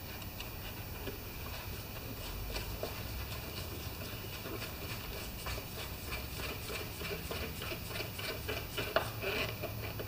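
Faint light clicks and metallic taps from a screwdriver working a fastener in the top of a lawn mower engine. The clicks come sparsely at first, then several a second in the second half.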